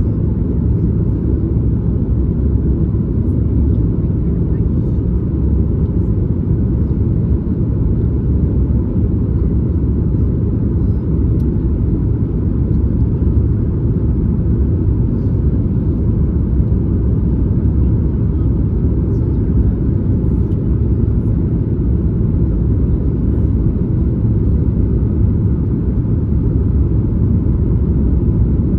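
Cabin noise inside a Boeing 737 MAX 8 from a seat just behind the wing: a steady, low rumble of the engines and airflow that holds level without change.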